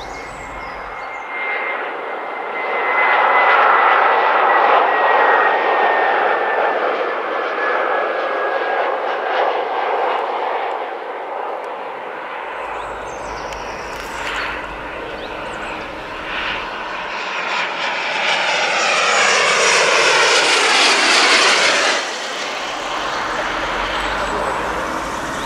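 Airbus A320 jet airliner on landing approach flying over, with a steady jet roar and a thin engine whine falling slowly in pitch. A second jet pass swells later and cuts off abruptly about three seconds before the end.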